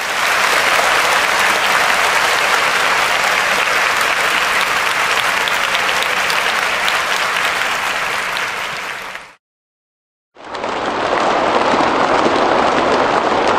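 Crowd applause, a dense sustained clapping that fades out about nine seconds in. After a second of silence a second, duller-sounding applause recording begins.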